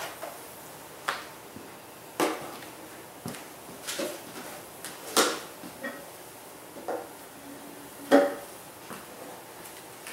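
Irregular knocks and clunks of beekeeping gear being handled: the wooden shipping box of a bee package and a bee brush being moved and set down. There are about ten knocks, the loudest about five and eight seconds in.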